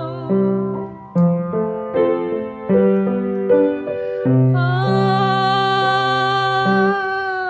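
Piano played slowly, a few single notes and chords in turn; about halfway through a woman's voice comes in on one long, wavering held note over a sustained chord.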